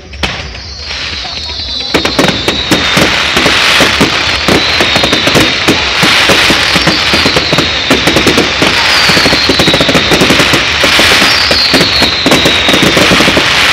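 Fireworks display: a dense, rapid crackle and popping of bursting fireworks that builds over the first two seconds and then carries on loudly, with a falling whistle heard several times over it.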